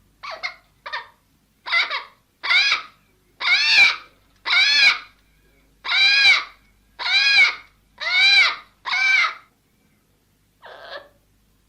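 A parrot giving a series of about eleven short calls, each rising then falling in pitch, roughly one a second; the first two and the last are fainter.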